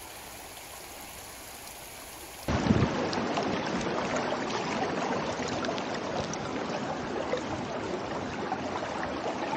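Muddy floodwater flowing down a swollen riverbed. First a fainter steady flow, then, about two and a half seconds in, a much louder close rush of water that starts with a low bump and stays steady.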